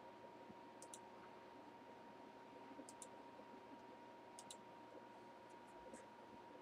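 Faint computer mouse clicks, mostly in close pairs a second or two apart, over quiet room tone with a faint steady electrical whine.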